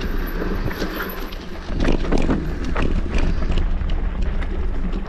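Mountain bike moving over a rough, rooty trail: irregular clicks and clatter over a steady low rumble of wind on the microphone.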